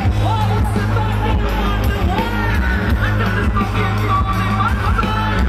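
Live electronic-pop band playing over a loud PA: a steady, heavy bass line and keyboards, with a gliding melodic line on top.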